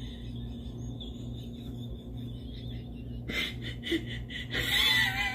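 A person's high, wavering whimpering sounds over a low steady hum, louder and more broken up near the end.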